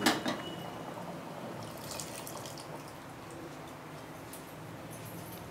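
Pot of dalcha, a lentil and vegetable curry, boiling on a gas stove: steady bubbling with scattered small pops.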